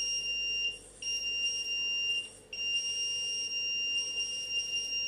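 Phonefix Shortkiller short-circuit detection box's buzzer sounding a steady high-pitched tone while its probes pass current through a shorted part, breaking off briefly twice.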